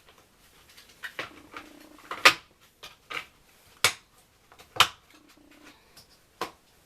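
Sharp knocks and clicks, about six spread irregularly, as the panels of a drawer unit are pushed and snapped together during assembly.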